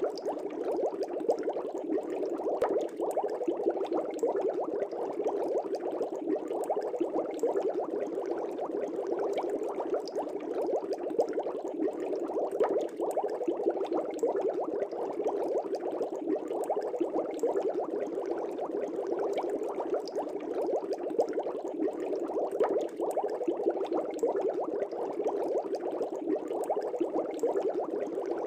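Fish tank water bubbling steadily: a dense, continuous stream of air bubbles with many small pops.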